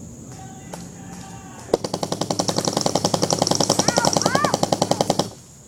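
Airsoft electric gun firing one long full-auto burst of about three and a half seconds: a rapid, even stream of shots that starts a little under two seconds in and stops abruptly.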